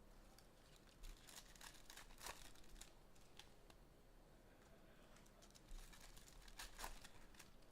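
Faint crinkling and tearing of trading-card pack wrappers, with irregular short rustles and snaps as packs are opened and cards handled; the loudest rustles come about a second in, past two seconds and near the end.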